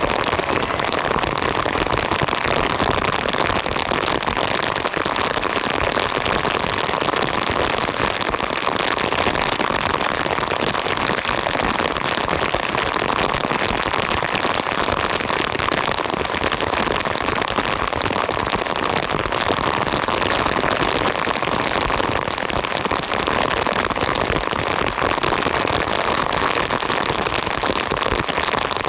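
Torrential rain falling steadily, a dense, unbroken hiss of drops.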